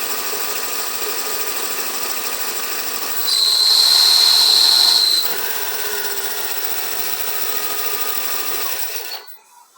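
Volkswagen Saveiro 1.6 engine idling with its clutch release bearing noise in the gearbox. About three seconds in the clutch pedal is pressed once and a loud, high-pitched steady squeal lasts about two seconds from the failed release bearing, which was seized and rubbing on the pressure plate. The running noise then carries on and stops abruptly near the end.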